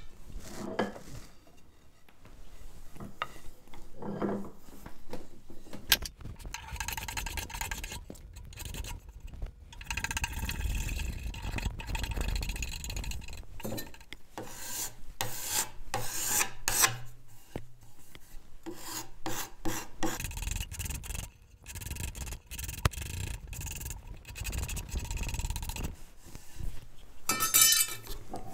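Hand rasp worked in repeated strokes along the edge of a wooden chair back splat, rounding the edge over. Each stroke is a rough rubbing scrape, with short pauses between them.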